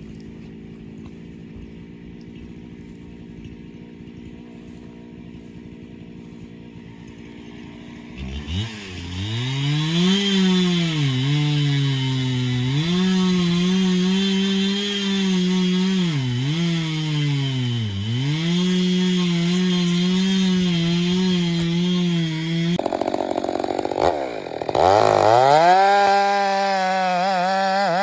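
Two-stroke chainsaw idling steadily, then revved up about eight seconds in and cutting under load, its engine pitch dipping sharply several times as it bogs in the cut; near the end it revs freely at full throttle. The bogging is put down to very hard, burnt timber and the operator pushing too aggressively.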